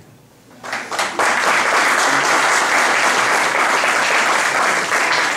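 Audience applauding, starting about half a second in and quickly building to steady, dense clapping.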